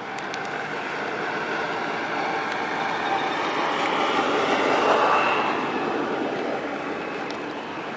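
Chevrolet C7 Corvette Stingray's 6.2-litre LT1 V8 running at low speed, heard from behind the car at its quad exhaust. It grows louder to a peak about five seconds in, then eases off.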